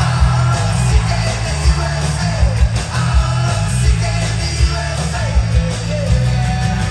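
Loud music with a singing voice over a strong bass line and a steady beat.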